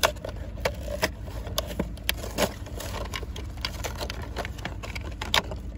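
Cardboard and plastic toy blister packaging being torn and crinkled open by hand, a string of irregular crackles and snaps, over a steady low rumble.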